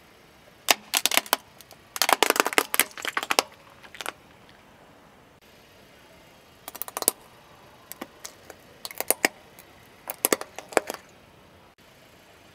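A car tyre rolling over small plastic objects and crushing them. There is dense crackling and snapping about a second in, lasting some three seconds, then shorter clusters of sharp cracks and clicks between about seven and eleven seconds in.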